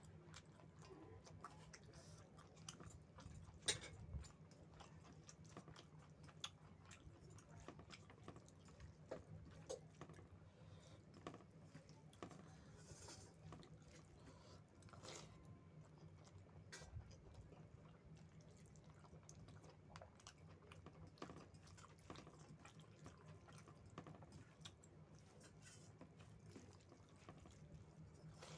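Faint chewing and wet mouth sounds of a person eating big mouthfuls of rice with chicken curry, with many small scattered clicks and smacks over a steady low hum.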